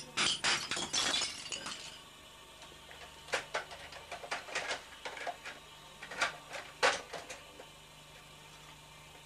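Ceramic wall tiles and plaster cracking and breaking under a hammer, a quick cluster of sharp cracks and clinks for about two seconds, then scattered sharp clicks and knocks.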